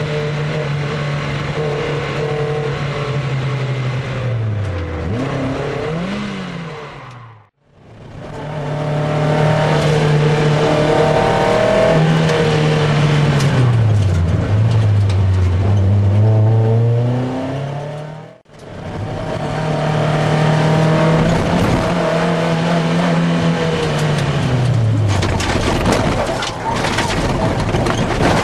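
In-car sound of an MGF race car's four-cylinder engine at racing speed, revving hard and dropping in pitch at each gear change or braking point. The sound dips briefly to silence twice, and near the end a run of knocks and rattles sounds over the engine.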